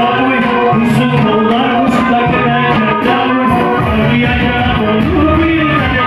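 Live Black Sea folk music: a Karadeniz kemençe playing, with a man singing over it.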